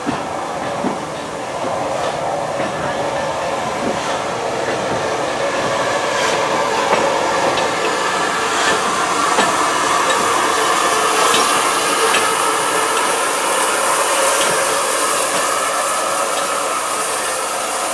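LMS Fowler 4F 0-6-0 steam locomotive 44422 moving slowly past along the platform road, wheels rumbling on the rails with a few sharp clicks. A hiss of steam grows louder in the second half.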